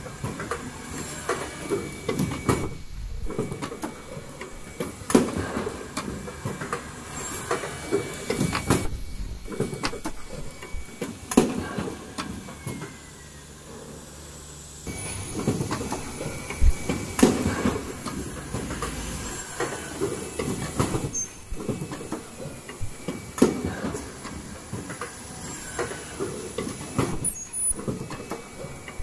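Automatic N95 cup mask machine running, its welding head and transfer mechanism clattering and knocking every second or two over a steady machine hum, with a short quieter lull about halfway through.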